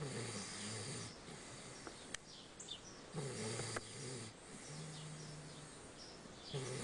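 Heavy snoring: four snores of about a second each, one of them a steadier, hum-like note.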